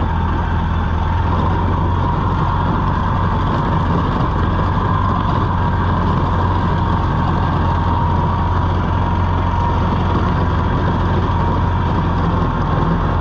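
Two-stroke engine of a 1980 Harley-Davidson golf cart running steadily under load as the cart drives along, with an even drone.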